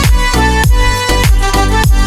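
Background music with a steady beat: deep drum hits that drop in pitch, about two a second, under sustained notes.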